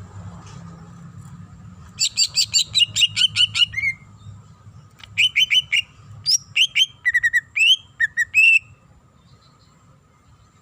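Green leafbird (cucak ijo) singing. About two seconds in comes a fast run of about ten sharp repeated notes ending in a slurred note; after a short pause there is a shorter run, then a varied string of whistled notes that stops near the end. A faint steady hum lies underneath.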